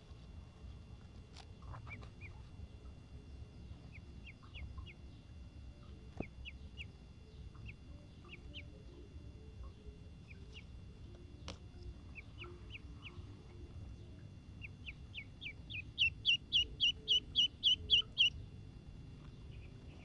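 Duckling peeping: short, high, falling peeps scattered here and there, then a fast, louder run of about five peeps a second for two seconds near the end.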